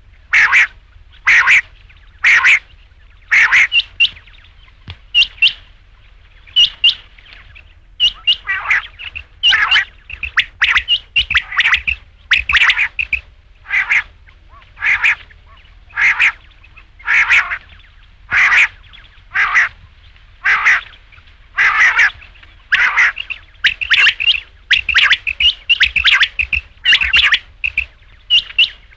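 Rain quail calling: a harsh, loud call repeated about once a second, often in quick pairs, over a faint low hum.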